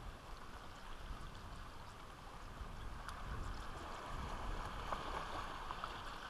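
Faint lapping of small waves on calm water, with a low, uneven rumble of light wind on the microphone.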